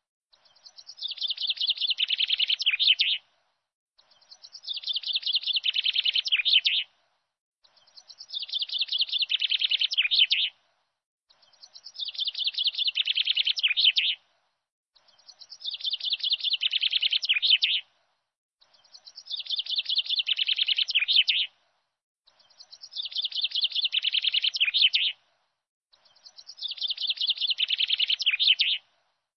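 Bird song played as a loop: the same chirping phrase, about two and a half seconds long and swelling toward its end, repeats eight times about every three and a half seconds with silence between.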